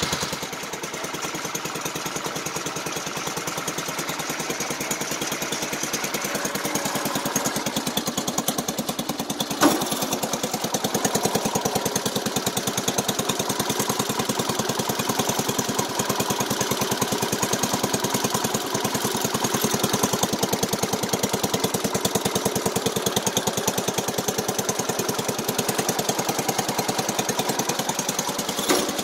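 Wheel Horse garden tractor engine running steadily on a newly fitted carburetor, with an even, rapid beat. A single sharp click comes about ten seconds in, and another near the end.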